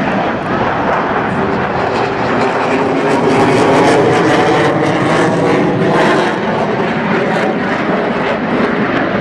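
Blue Angels F/A-18 Hornet jet flying overhead: loud, steady jet-engine noise that swells a little around the middle.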